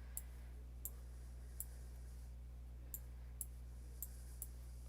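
Computer mouse clicking: about seven short single clicks at uneven intervals, over a faint steady low hum.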